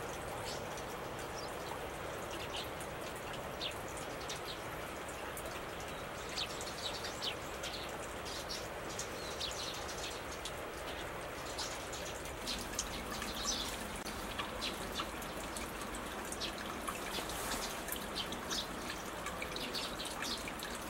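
Outdoor ambience: a steady hiss with many short, high chirps from small birds, scattered and irregular, getting busier from about six seconds in.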